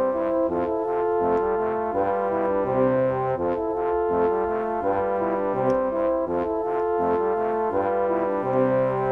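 Background music: a brass ensemble playing a tune in several parts, with held notes over a lower line.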